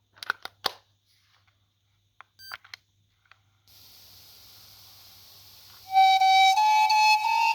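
Sony WM-EX511 cassette Walkman: a few sharp mechanical clicks from its buttons and cassette mechanism, then steady tape hiss as the cassette starts playing. About six seconds in, music from the tape comes in, a flute-like melody that is the loudest part.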